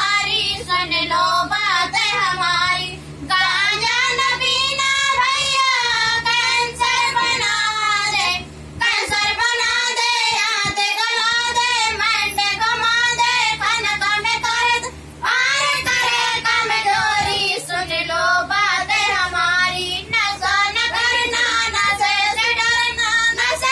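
Young women's voices singing a song together without instruments, in long melodic phrases broken by short pauses for breath.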